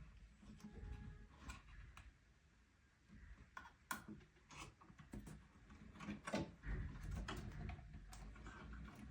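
Quiet handling noises as a pinball soundboard is mounted: scattered light clicks and knocks, a few sharper ones in the second half.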